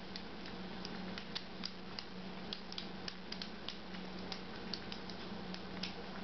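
Two kittens lapping milk from bowls: an irregular run of small wet clicks, several a second, over a steady low hum.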